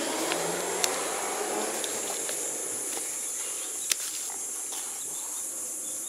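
Steady high-pitched drone of insects outdoors, with two sharp clicks of hand pruning secateurs snipping weed and rose stems, about a second in and near four seconds.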